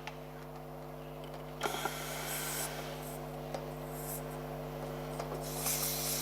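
Rubbing and scraping of hands handling the tyre and the compressor's hose fitting, getting louder from about a second and a half in and again near the end, over a steady low hum.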